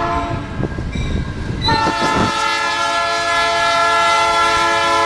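Diesel locomotive's air horn sounding for a road crossing: a first blast tails off within the first second, then a long steady multi-tone blast starts just under two seconds in and holds. A low rumble lies under the first two seconds.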